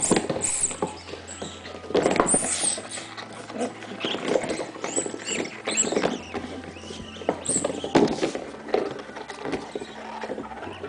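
Rubber chicken dog toy squeaking in quick, irregular bursts as a dog bites and chews it, loudest about two seconds in and again near eight seconds.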